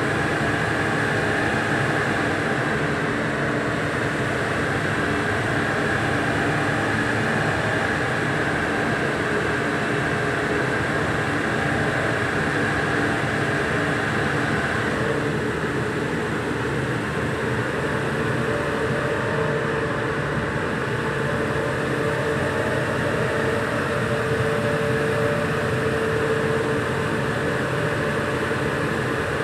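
Rover 2300's straight-six engine running steadily on a rolling-road dyno, mixed with the whir of the dyno's large cooling fan. About halfway a higher tone in the sound drops away and a lower tone comes in.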